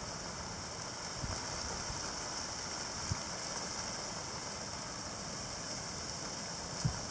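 Steady outdoor ambience of gusty wind and showers: an even hiss over a low rumble, with a couple of faint knocks.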